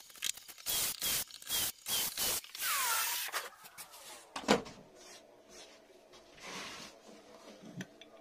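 Handling of wood and tools on a workbench: a run of short scraping strokes, then a longer scrape. A single sharp knock about four and a half seconds in is the loudest sound.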